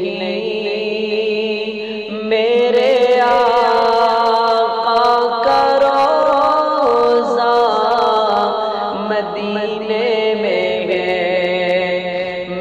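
A man singing an Urdu naat, drawing out long, ornamented notes over a steady low drone. His voice grows louder about two seconds in.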